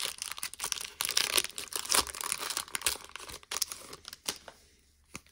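Foil wrapper of a Pokémon trading card booster pack being torn open and crinkled: a dense crackle that dies away about four and a half seconds in.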